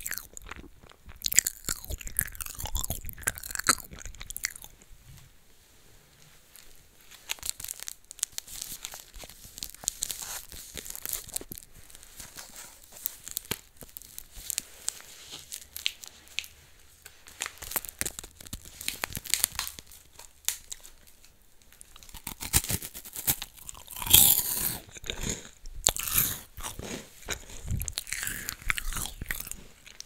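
A person taking crunchy bites of a snack and chewing close to the microphone, in clusters of crisp crackles with brief quieter pauses between them.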